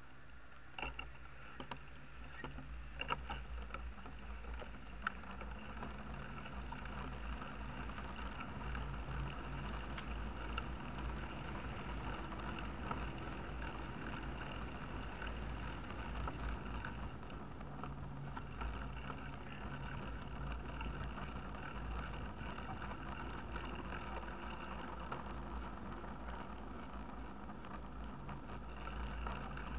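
Mountain bike rolling along a paved lane, heard from an onboard camera: a steady low rumbling rush of wind and rolling noise. A few sharp knocks and rattles come in the first few seconds as the ride gets under way.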